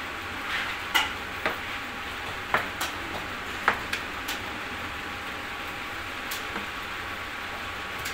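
Paintbrush working a wet white coating onto a fibreglass cooler body, the bristles scraping and swishing, with several sharp taps of the brush against the panel in the first four seconds. A steady hiss runs underneath.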